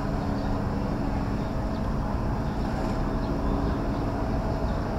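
A steady mechanical hum over a low rumble, with an unchanging pitch, like an engine running.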